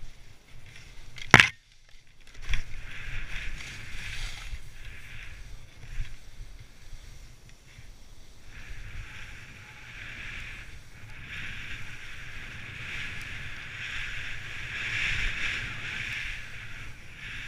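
Skis hissing through powder snow on a downhill run, heard close on a body-mounted camera, with a low rumble of wind on the microphone; the hiss swells and fades with the turns. A sharp knock about a second and a half in, then a smaller one.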